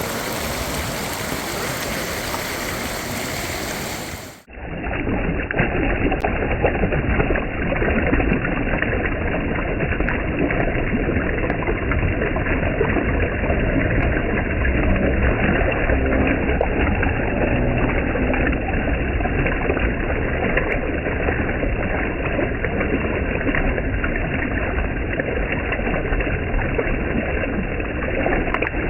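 Turbulent mountain river water rushing and gurgling. About four seconds in there is a brief drop, and then the sound turns duller and muffled, with the highs gone: the same gurgling water slowed down.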